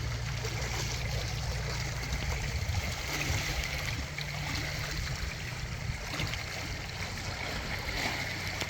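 Seawater lapping and sloshing against a floating dock: a steady watery wash over a low rumble.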